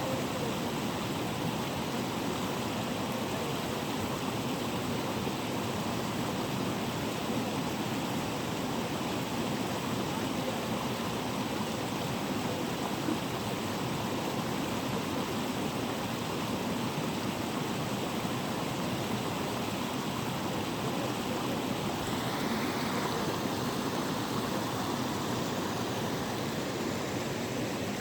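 Natural waterfall: a steady, unbroken rush of falling water.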